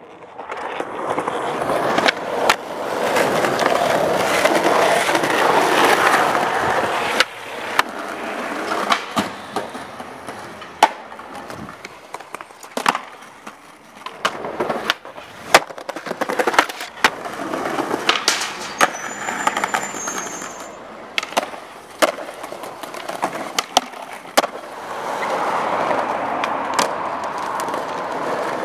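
Skateboard wheels rolling on concrete, with many sharp cracks of the tail popping and the board and trucks landing and slapping the ground.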